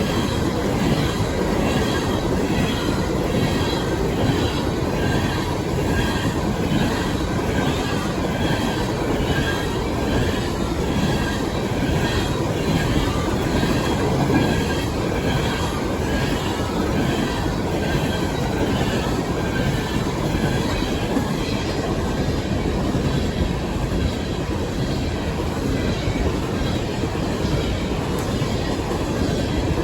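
Coal train's freight cars rolling past steadily on the rails, the wheels making a regular repeating rhythm over the track.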